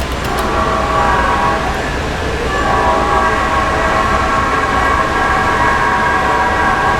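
Nathan Airchime P01235 (P5) five-chime air horn, the old cast version, sounding its chord: a short blast of about a second and a half, a brief break, then a long held blast.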